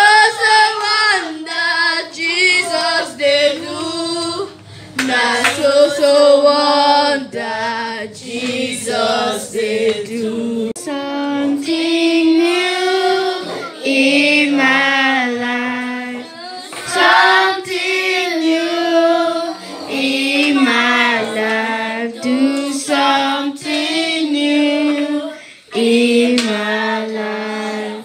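A girl singing into a handheld microphone, with other children's voices singing along.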